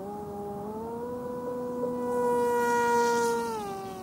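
Electric motor and propeller of a small foam RC stunt plane whining in flight. The pitch rises at the start, holds steady while it gets louder, then drops and fades about three and a half seconds in.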